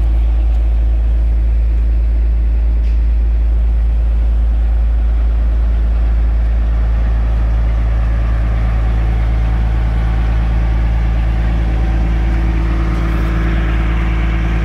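Caterpillar 345D L excavator's diesel engine idling steadily, a constant low hum that does not change pitch.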